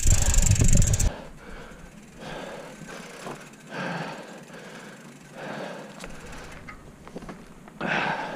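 Mountain bike rolling along a dirt singletrack, its tyres crunching and the bike rattling over the bumps in uneven swells. Wind rumbles on the helmet microphone until about a second in, then cuts off suddenly.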